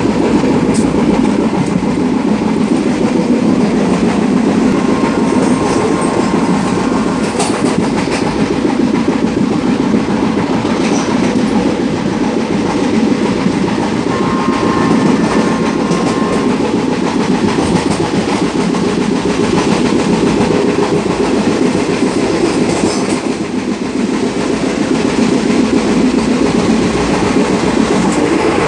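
Express passenger train running at speed, heard from the open doorway of a coach: a loud, steady rumble of the running gear with occasional clicks of the wheels over rail joints.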